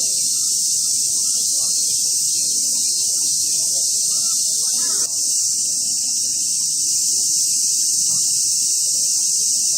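Cicadas buzzing in a dense, steady chorus, the loudest sound throughout, over a faint low murmur of distant voices and city noise.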